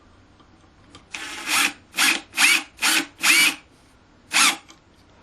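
Porter-Cable 20V brushless cordless impact driver run in about six short trigger bursts, driving a 3-inch screw into wood. The first burst comes about a second in, four quick ones follow close together, and the last comes near the end. In each burst the motor whine rises.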